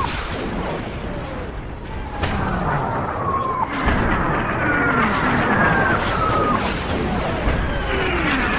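Artillery bombardment sound effect: several overlapping incoming-shell whistles fall in pitch and cut off sharply, amid repeated explosions and a continuous low rumble.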